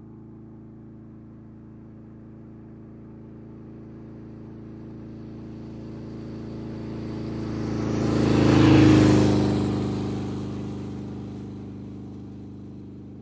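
Large adventure motorcycle riding past: a steady engine note that grows louder for about eight seconds, peaks as it passes, then fades as it rides away.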